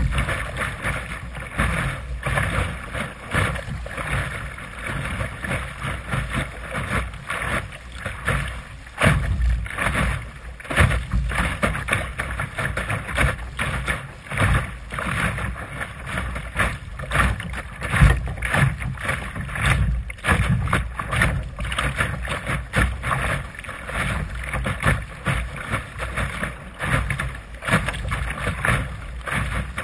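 Water splashing and slapping irregularly against the bow of a Sunfish sailboat's hull as it sails through chop, over a low rumble of wind on the microphone.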